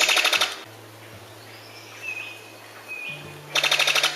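Brown sicklebill, a bird-of-paradise, giving its rattling call: a rapid burst of sharp clicks, about a dozen a second, that sounds like gunfire. It comes once at the start and again near the end, with faint whistled tones and a low steady hum in between.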